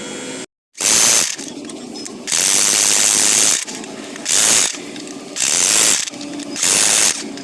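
Ratchet wrench worked in five quick runs of rapid clicking, each lasting from a fraction of a second to over a second, on a car's clutch job.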